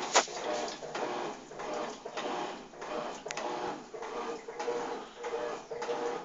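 Electrolux TOP6F top-loading washing machine agitating a load, its agitator swishing water and clothes back and forth in regular strokes about every two-thirds of a second, with a motor hum under the later strokes. A sharp click sounds just after the start.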